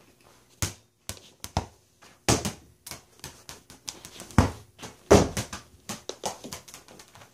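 A ball kicked and bouncing on a hardwood floor: a run of irregular thumps and knocks, the loudest about four and a half and five seconds in.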